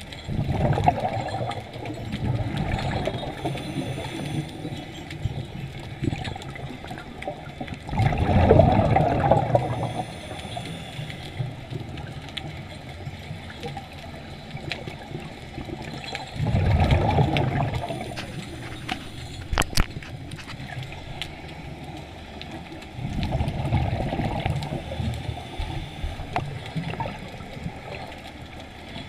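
Underwater: a diver's exhaled air bubbling out in bursts about every seven or eight seconds, over a steady watery hiss, with a couple of sharp clicks near the middle.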